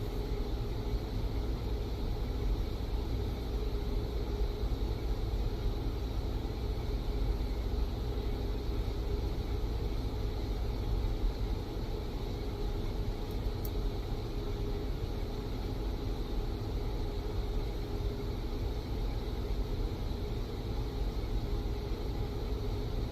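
TIG welding arc burning steadily during a vertical-up groove weld: an even hum and hiss that does not break.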